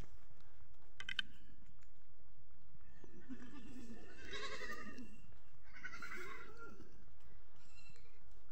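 Two long bleating calls from sheep or goats in a shepherd's flock, the first lasting about two seconds starting about three seconds in, and a shorter one around six seconds in.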